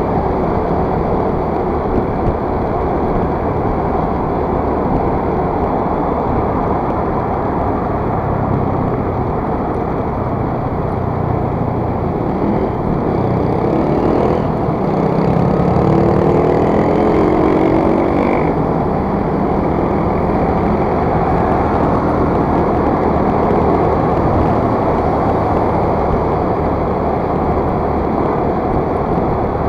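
Motor scooter riding through traffic: steady engine running under loud wind rush. About halfway through, an engine note rises in pitch for a few seconds as a vehicle speeds up.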